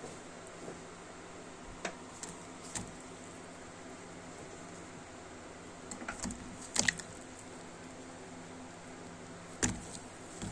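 Pieces of corn on the cob being put into a pot of hot, steaming water, giving a few short knocks and splashes over a steady hiss. The loudest knocks come about six to seven seconds in.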